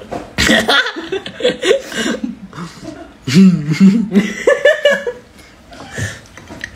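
People laughing and chuckling, mixed with a few indistinct spoken words.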